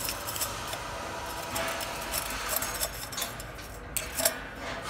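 Metal lathe running with a steady machine hum, and a few sharp metallic clinks and rattles of steel swarf.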